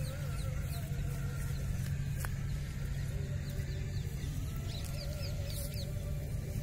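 Outdoor farmland sound: small birds chirping repeatedly and chickens clucking, over a steady low hum.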